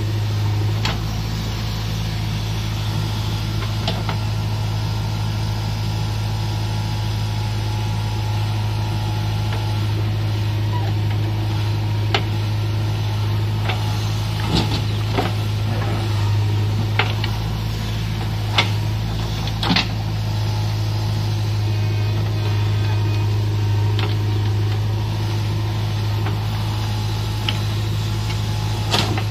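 JCB 3DX backhoe loader's diesel engine running steadily as its backhoe digs soil and dumps it into a tractor trolley. Scattered knocks and clanks of the bucket and falling earth come in a cluster around the middle and once more near the end.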